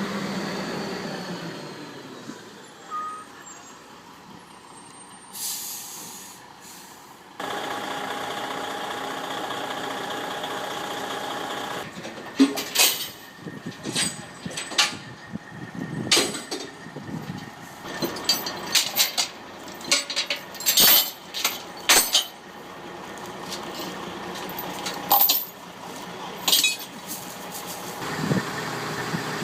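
Heavy truck hauling an excavator on its trailer, its engine dying down, then a short air-brake hiss. A steady engine note starts suddenly, followed by a long run of sharp metallic clanks and knocks as the rig is handled, and an engine picks up again near the end.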